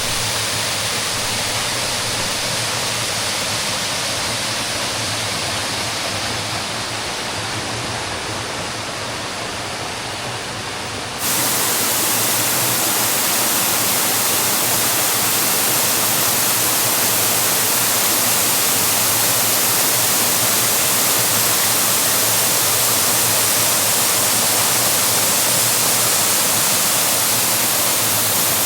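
Waterfall rushing in a steady, even roar. About a third of the way in it cuts abruptly to a louder, brighter rush.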